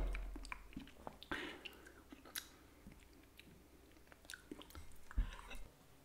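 Mouth noises of a man licking and smacking his lips after eating soup: scattered small wet clicks and chewing sounds, with a soft knock about five seconds in.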